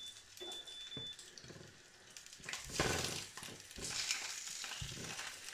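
Chicken sausages sizzling faintly in a lightly oiled frying pan over lowered heat. In the second half come a few soft knocks and fresh sizzles as more raw sausages are laid into the pan.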